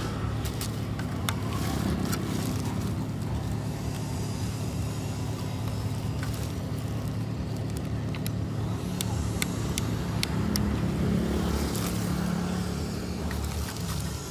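Steady low rumble with scattered short, sharp clicks.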